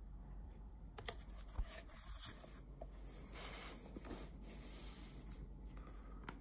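Faint handling of a cardboard watch box: the inner box scraping and sliding against its paper sleeve, with a few light taps.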